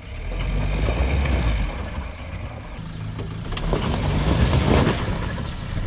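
Mahindra Thar 4x4's engine pulling hard under load as it crawls up a rocky step in one go, swelling again about three seconds in, with knocks and crunches from the tyres on the rocks near the loudest part.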